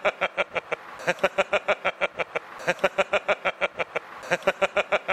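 A man laughing heartily in long runs of rapid 'ha-ha' pulses, about seven a second, with a short catch of breath between runs roughly every one and a half seconds.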